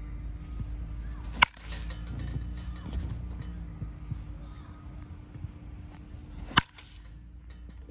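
Baseball bat striking pitched balls in a batting cage: two sharp cracks, about five seconds apart.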